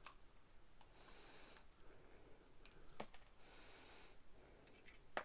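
Faint clicks and small cracks of a Hatchimals Colleggtimals toy egg's shell being pressed open and peeled off by hand, with soft rustling between.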